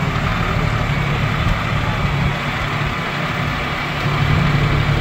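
John Deere utility tractor's diesel engine running steadily under load as it pulls a plow through sod.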